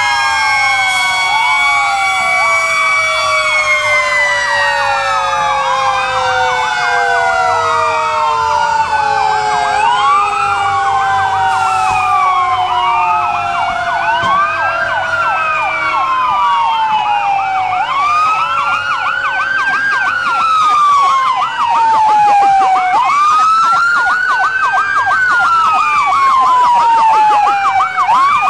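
Several fire engine sirens sounding at once, loud and overlapping. Wails rise and fall every two to three seconds, faster yelps join in about two-thirds of the way through, and a lower tone slowly winds down over the first half.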